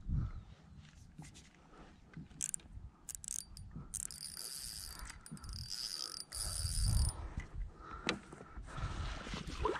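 Fishing reel being worked to bring in a hooked fish: mechanical ratcheting and clicking, with a steady high whirr for a few seconds in the middle.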